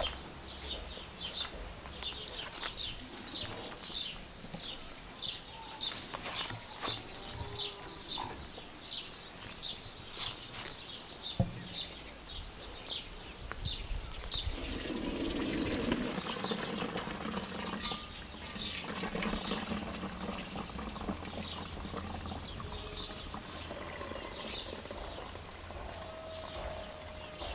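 Hot water and boiled nettle leaves poured from a pot into an aluminium colander, a splashing rush about halfway through. Before it, high chirps repeat about twice a second, then fade out.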